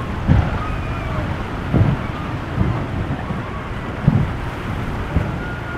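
Wind buffeting the microphone: a steady low rumble broken by about five stronger gusts.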